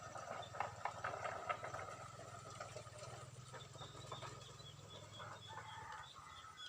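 Birds calling: a burst of clucking, fowl-like calls in the first couple of seconds, then a short high chirp repeated several times a second, over a steady low hum.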